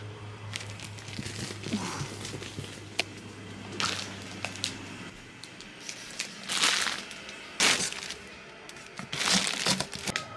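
A compressed plastic vacuum storage bag crinkling and crackling as it is handled and pushed into a cardboard box. The rustling comes in irregular bursts with scattered sharp cracks, loudest in three bursts in the second half.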